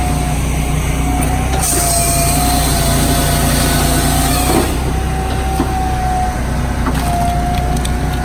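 Firewood processor and its sawdust conveyor running: a steady engine drone under a high, slightly wavering whine, with a rush of hiss from about a second and a half in until nearly five seconds.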